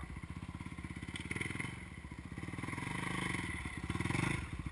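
Yamaha dirt bike engine idling with an even putter of firing pulses, swelling twice in level about a second in and again around three to four seconds in.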